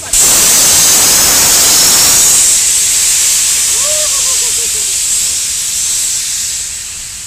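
DB class 23 steam locomotive 23 058 blowing steam from its open cylinder drain cocks as it moves off: a loud hiss that starts suddenly and eases after a couple of seconds.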